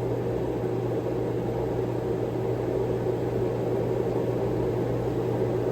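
Steady machine hum: a constant low drone over an even hiss.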